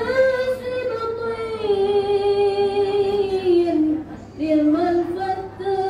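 A group of women singing a sholawat in Arabic in unison, without accompaniment. The melody moves in long held, gliding notes that step down slowly, with a short dip about four seconds in before the line picks up again.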